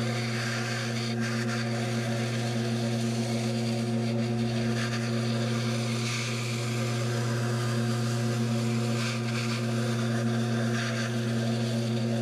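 Wood lathe motor running with a steady hum while a gouge cuts into a spinning pink foam blank, a hissing scrape that swells and eases as the tool is worked.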